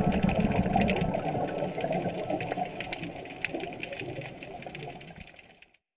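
Underwater ambience picked up through a camera housing: a low rumble with dense, irregular crackling clicks, fading out near the end.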